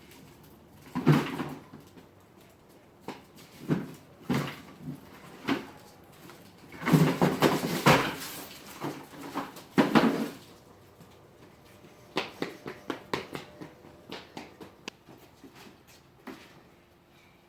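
Irregular knocks and clatter of small objects being handled, with a few short rustling bursts, the longest about seven seconds in, and a quick run of light clicks near the end.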